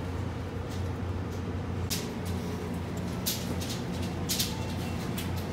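Steady low hum of supermarket refrigerated display cases, with a few short light clicks and rustles scattered through.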